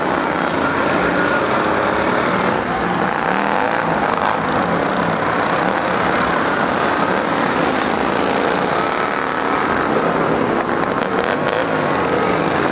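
Several racing lawn mower engines running together at high revs, their pitches rising and falling as the mowers accelerate, brake and pass.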